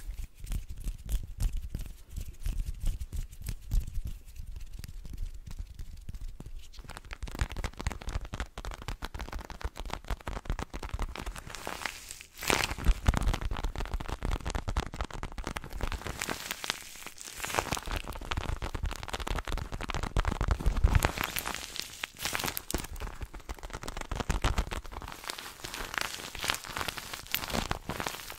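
Lotioned hands rubbing close to the microphone, heard as low muffled rubbing and soft thumps. About seven seconds in this gives way to a paper squishy being squeezed and crumpled right at the microphone, a dense crinkling that pauses briefly now and then.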